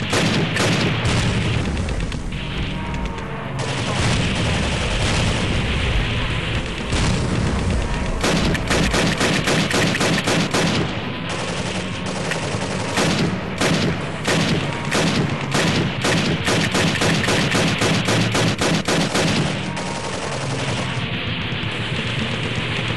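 Paintball markers firing in rapid volleys, many shots a second, densest in two long runs in the middle, over background music.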